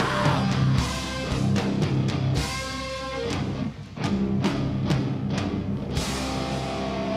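Live heavy post-rock band playing: distorted electric guitars, bass and drum kit with cymbal hits. Just before the middle the music drops out for a moment, then the full band comes back in, ending on held, ringing guitar chords.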